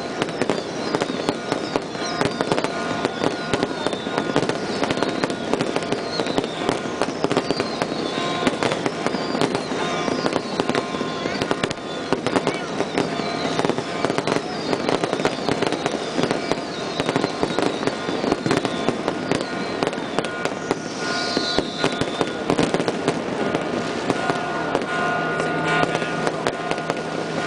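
Aerial fireworks going off continuously in dense bangs and crackles, with a string of short falling whistles. Steady ringing tones underneath come from the bells of the bell concert.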